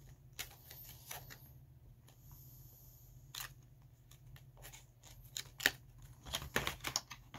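Clear plastic bait package crinkling and clicking as it is handled, with scattered sharp crackles that grow denser and louder in the second half.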